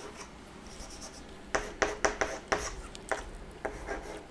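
Chalk writing on a blackboard. After a quiet second and a half comes a run of short scratches and taps, one for each stroke of the chalk.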